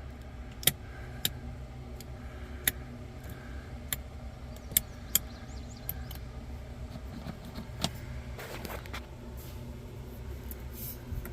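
About a dozen sharp, separate clicks and knocks of things being handled and moved, over a steady low hum.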